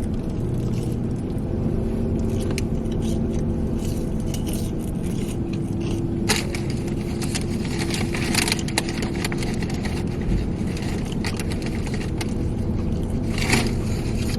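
Steady drone of a high-mileage pickup truck's running engine, heard from inside the cab. Scattered crinkles and clicks of food packaging being handled come through it, a few of them louder.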